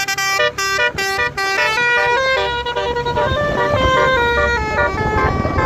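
Bus 'telolet' multi-tone musical horn playing a tune: a quick run of short repeated toots, then a melody of held notes stepping up and down, ending near the end.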